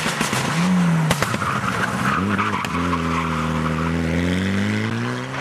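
Mitsubishi Lancer Evolution rally car's turbocharged four-cylinder engine cornering at speed. The revs rise and fall through the bend with tyre noise and a few sharp cracks about a second in. From about three seconds in, the revs climb steadily as the car accelerates away.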